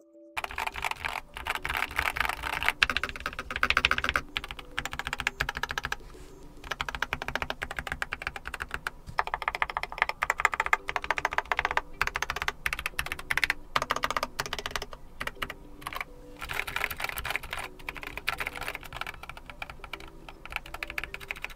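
Typing on a Keychron K4 HE aluminium-bodied 96% keyboard with magnetic Nubia Linear switches: rapid keystrokes clacking in runs, easing off briefly a couple of times.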